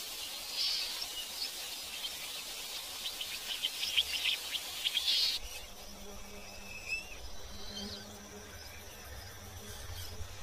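Rainforest ambience: a dense high-pitched insect chorus with bird chirps, which cuts suddenly about five seconds in to a sparser bed of scattered short bird calls over a low steady hum.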